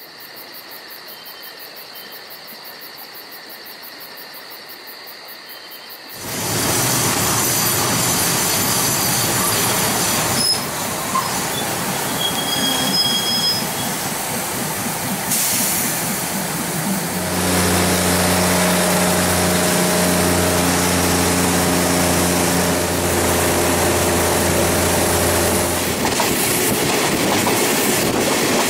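Diesel train running on rails: a loud, steady rushing rumble of wheels and track that starts about six seconds in. A steady low engine hum joins it partway through and stops near the end. Before it, a quieter stretch carries a few faint steady high tones.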